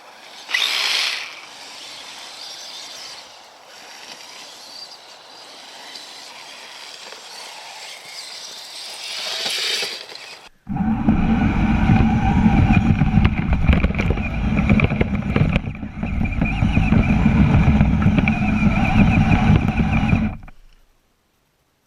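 Kyosho Blizzard RC snowcat's electric motors and gear drive running, heard from a camera mounted on it. At first it is moderate, with two brief louder surges; about halfway it suddenly becomes much louder, with a steady whine over a heavy rumble, then cuts off shortly before the end.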